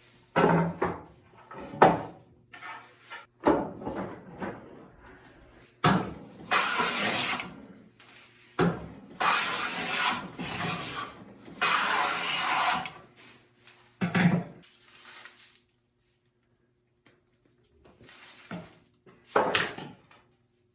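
A hand tool working a pine board in a series of separate strokes, each about one to two seconds long with a sharp start, and short knocks of wood between them.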